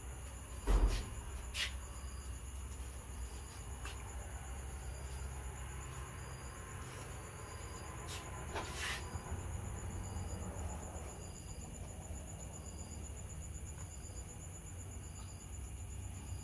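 Night insects, crickets, trilling steadily and high-pitched, with a shorter chirp repeating about every second and a half. A low thump sounds about a second in.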